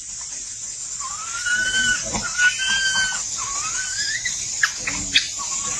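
Infant macaque whimpering: a run of thin, whistling cries that rise and waver, each under a second long. These are the distress calls of a baby being weaned from its mother's milk. A few short clicks follow near the end, over a steady high hiss.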